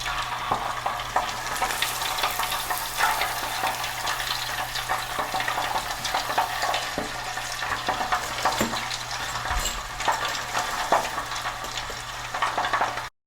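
Breaded cheese corn dogs deep-frying in hot oil: a continuous crackling sizzle dense with small pops. It cuts off suddenly near the end.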